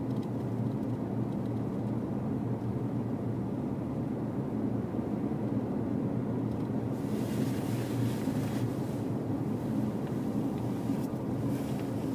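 Car driving on a paved road, heard from inside the cabin: a steady low rumble of engine and tyres, with a brighter hiss of wind and tyre noise coming and going from about seven seconds in.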